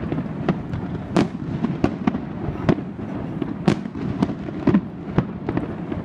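Aerial fireworks bursting in quick, irregular succession: sharp bangs and crackles, a few louder than the rest.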